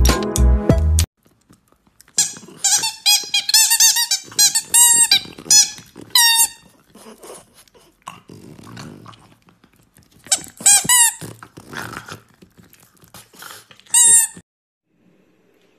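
French bulldog giving strings of high-pitched squeals and whines that rise and fall in pitch, in two runs, the second cutting off suddenly. Background music fades out about a second in.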